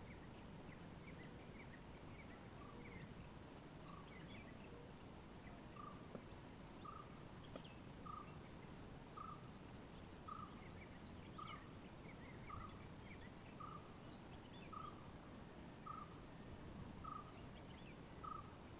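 Faint bird calls: one bird repeats a single short note about once a second, with other small chirps scattered around it.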